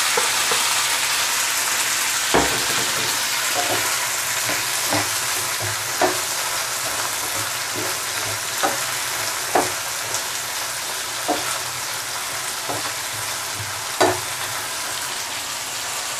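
Chopped onion, tomato, ginger, garlic and green chillies sizzling steadily in hot oil in a nonstick pan. A wooden spatula stirs them, knocking and scraping against the pan at irregular intervals.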